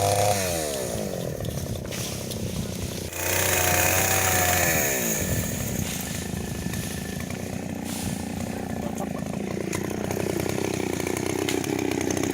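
A small petrol engine revving up and dropping back twice, then running steadily with its pitch climbing near the end.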